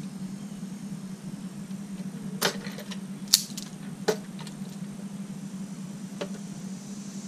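A handful of sharp snips and clicks from wire cutters working on electrical wires, the loudest a little over three seconds in, over a steady low hum.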